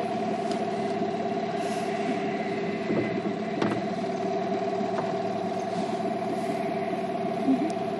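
Outboard motor of a small boat running steadily at an even pitch.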